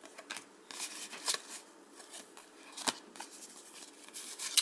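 Baseball cards being flipped and slid one behind another in the hands: a series of light papery swishes and flicks, with a sharper flick a little under three seconds in.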